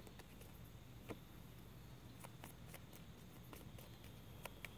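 Near silence, with a few faint clicks of tarot cards being handled and drawn from the deck, two close together near the end.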